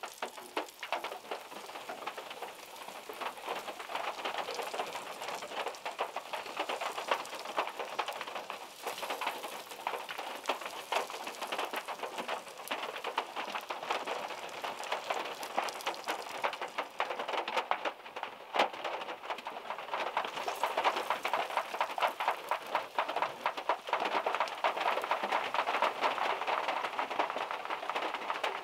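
Heavy rain falling on a small car and the wet ground, with a dense spatter of drops from overhanging trees. It grows a little louder after about two-thirds of the way through.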